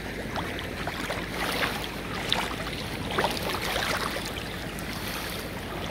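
Sea water sloshing and splashing as people wade through it waist-deep, with irregular small splashes over a low wind rumble.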